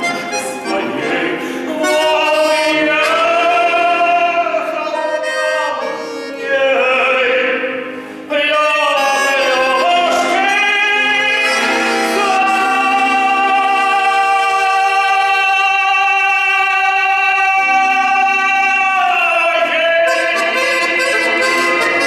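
A man sings in a full operatic style to accordion accompaniment. About halfway through he holds one long note with vibrato for around seven seconds before the phrase ends.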